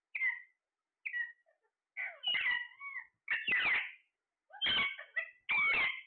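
Alexandrine parakeet calls: two short squawks, then from about two seconds in a run of longer, louder, wavering calls roughly one a second.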